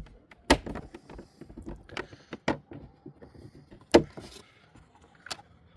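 Plastic cover panel on a Sea-Doo being worked loose by hand: a series of clicks and knocks, the sharpest about half a second and four seconds in.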